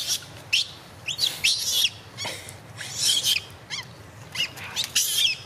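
Young macaques squealing: a string of short, high-pitched calls, several sliding down in pitch, with a quick run of falling chirps near the middle.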